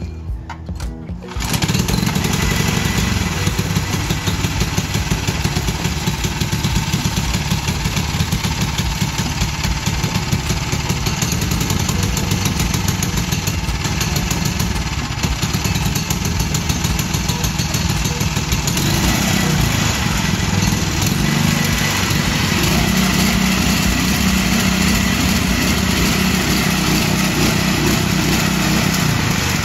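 Tillotson 212 single-cylinder four-stroke engine on a freshly built minibike catching about a second and a half in and then running steadily through a short homemade exhaust manifold. Its tone shifts a little about two-thirds of the way through.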